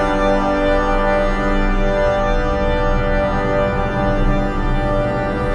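Soundtrack music: a long held organ chord.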